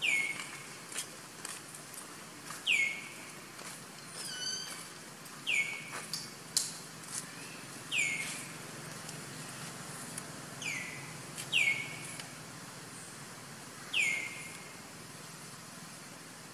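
A bird calling in forest: a short clear note that drops quickly in pitch, repeated about seven times every two to three seconds, with a brief burst of higher twittering from another bird about four seconds in.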